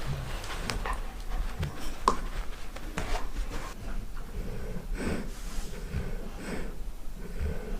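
Golden retriever snoring loudly: a string of rasping sleep breaths, coming about once a second in the second half, with a few short sharp clicks in the first three seconds.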